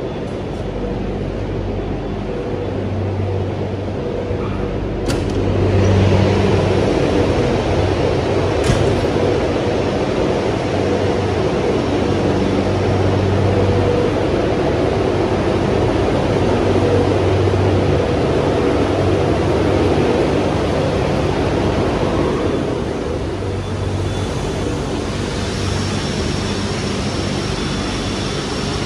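Steady mechanical hum and air noise of running production-line machinery, with two sharp clicks about five and nine seconds in.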